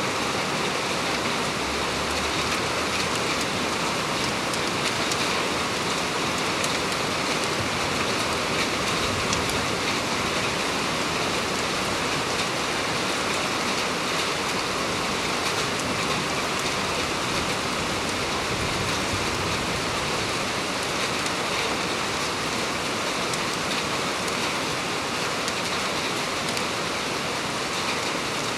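Heavy rain pouring steadily: a dense, even hiss with faint scattered ticks of drops striking.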